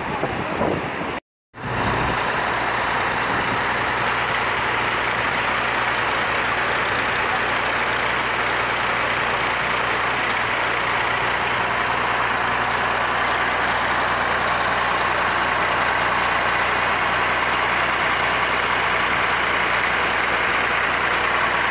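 Rushing water of a fast mountain stream with a vehicle engine running steadily underneath. The sound drops out briefly about a second in.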